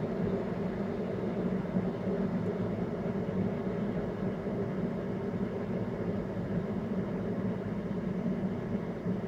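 Kettle of water and vinegar heating on the stove toward the boil, a steady rumbling of bubbling water.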